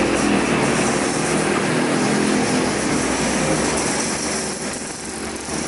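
Road traffic with a heavy vehicle's engine droning steadily, dipping slightly about five seconds in.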